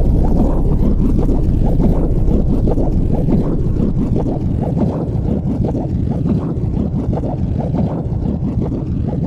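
Steady low rumbling noise, like wind or a fan blowing on the microphone, with a fine rapid flutter and no clear separate events.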